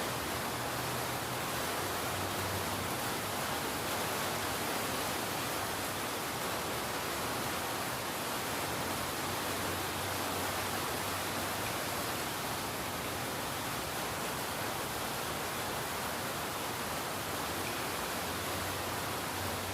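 Steady rain: an even, unbroken hiss with no single drops standing out.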